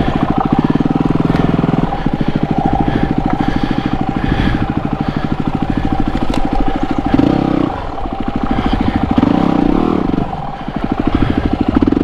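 Yamaha WR250R's 250 cc single-cylinder four-stroke engine chugging at low revs on rough off-road ground, with a few short bursts of throttle in the second half.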